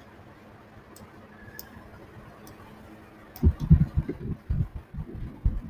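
A few faint computer mouse clicks over quiet room hiss, then, from just past halfway, about two seconds of irregular low thumps and rumbles.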